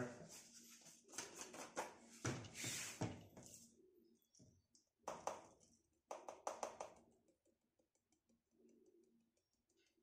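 Faint handling of a plastic dishwasher-detergent powder bottle: a run of clicks and scrapes as its cap is worked open, then the powder pouring into the dishwasher's detergent dispenser cup with a light, fine pattering near the end.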